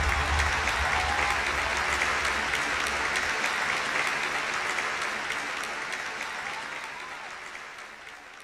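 Audience applauding, a dense spread of clapping, as the bass of the dance music dies away about three seconds in; the applause then fades out near the end.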